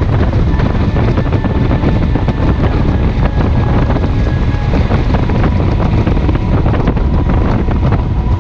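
Wind buffeting the microphone of a Triumph Trophy touring motorcycle riding at road speed, with the bike's engine running steadily underneath.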